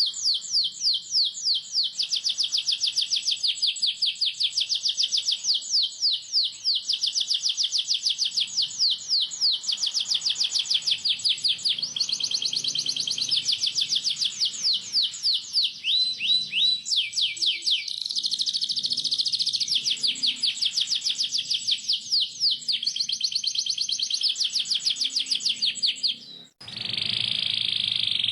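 Domestic canary singing a long, tight rolling song: rapid runs of quick down-slurred chirps and trills, broken by a brief pause near the end before a continuous buzzing roll.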